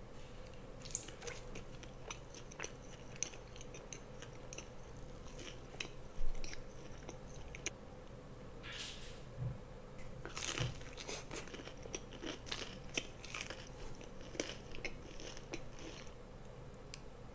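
Close-miked eating: crispy breaded fried chicken tenders bitten, crunched and chewed, with small wet mouth clicks throughout. A louder bite comes about six seconds in, and the heaviest crunching comes around nine to eleven seconds.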